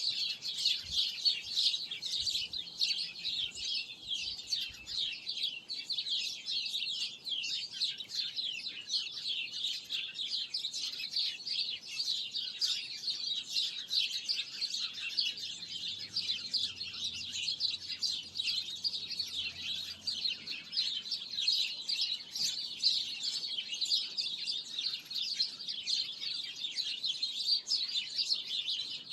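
Many small birds chirping at once: a dense, unbroken chorus of quick, high chirps overlapping one another.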